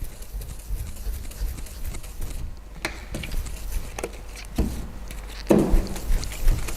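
Hand wet sanding of car paint with a 3000-grit sheet on a sanding block: uneven back-and-forth scrubbing strokes, with a few short sharp clicks and a louder scuff near the end.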